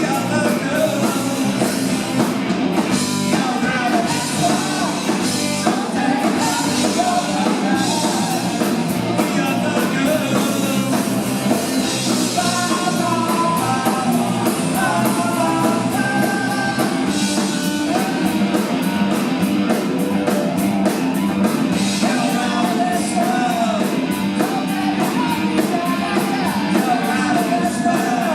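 Live punk rock band playing a song at full volume: drums and electric guitars under a singing voice.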